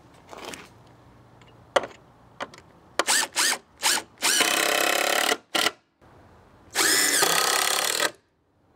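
DeWalt cordless driver driving screws into old redwood deck boards. It starts with a few quick trigger bursts, then comes two longer runs of about a second each, the motor whine rising as it spins up and then holding until it stops.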